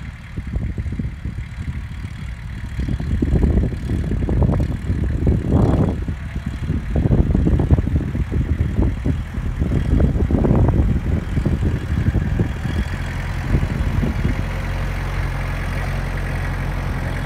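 Farm loader tractor's engine running as the tractor drives up and over a wooden plank bridge, with irregular knocks and rattles over a steady low hum, settling to a steadier run in the last few seconds.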